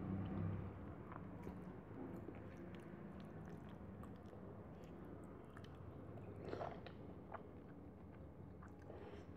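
Close-miked chewing of a mouthful of rice and curry, with small mouth clicks throughout and a louder sound about six and a half seconds in.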